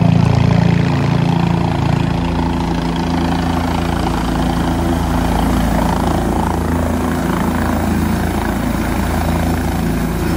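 Helicopter coming in to land, its rotor and engine running loud and steady.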